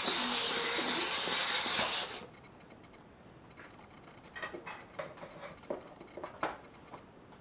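Powerful hobby servos inside a robotised Baby Born doll whirring as they swing its limbs, cutting off suddenly about two seconds in. Faint scattered clicks follow while the doll holds still.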